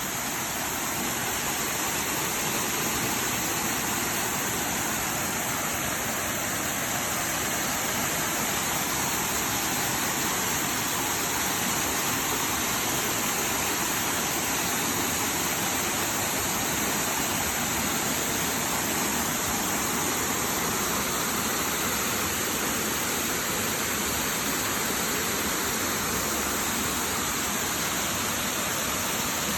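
Waterfall pouring steadily, a continuous rushing of falling water.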